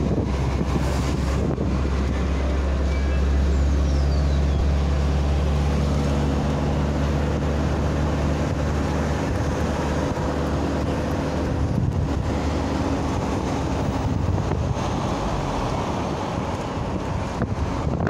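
Steady low rumble of road vehicles and traffic, with a few steady engine tones that shift about two-thirds of the way in, and wind buffeting the microphone.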